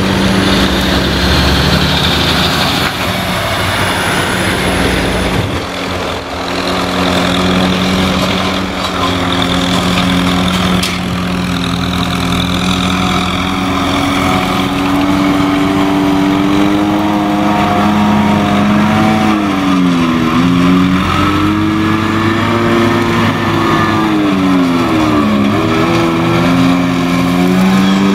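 Massey Ferguson 5445 tractor engine running under load while driving front and rear mulchers, with a steady haze of machine noise over the engine note. In the second half the engine pitch dips and recovers twice, pulled down by the load.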